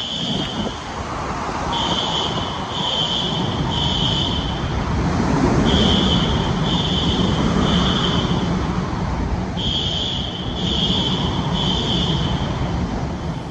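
Hurricane-force wind roaring through a parking garage in the eyewall, swelling and easing. Over it, an electronic alarm sounds three high beeps at a time, with a pause after each group of three.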